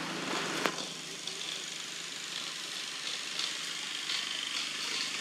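A long-tailed macaque gnawing a green coconut's husk, one sharp crack about a second in and a few faint clicks after, over a steady high outdoor hiss and a low engine hum that fades early on.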